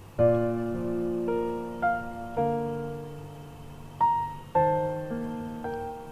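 Gentle background piano music: single notes and chords struck roughly every half second, each ringing and fading, with a short pause near the middle.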